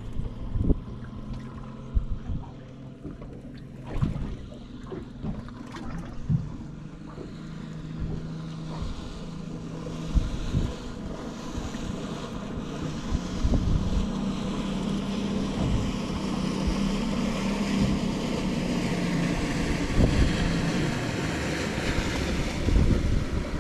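Motorboat engine running steadily, growing louder with a rising rush of water as the boat draws close and passes, with wind buffeting the microphone. A few sharp knocks in the first several seconds.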